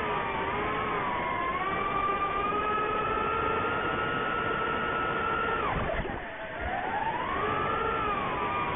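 Brushless motors and propellers of an ImmersionRC Vortex 150 Mini FPV quadcopter whining, the pitch wandering up and down with the throttle. About six seconds in the pitch drops sharply and the sound dips as the throttle is chopped, then it climbs back up.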